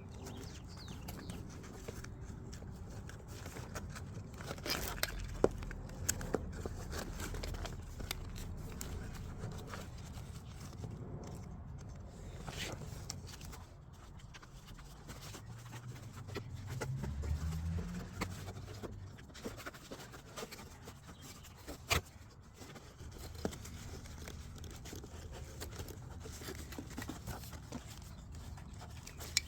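Nylon webbing and fabric of a plate carrier rustling and scraping as MOLLE straps are woven through it by hand, with scattered small clicks and a couple of sharper knocks.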